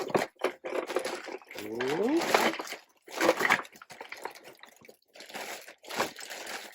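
Packing paper and bubble wrap rustling and crinkling in short bursts as toy playset parts are handled and unwrapped, with a brief 'ooh' about two seconds in.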